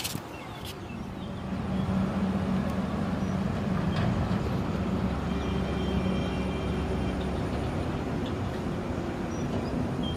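Engine drone of passing road traffic, swelling about a second and a half in and then holding steady.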